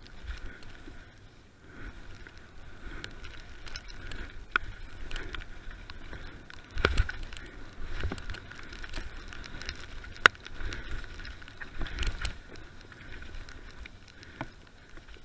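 Mountain bike descending a dirt forest trail at speed, heard from the bike: a steady rumble of tyres and wind on the microphone, with the bike rattling and several sharp knocks over bumps, the hardest about 7, 10 and 12 seconds in.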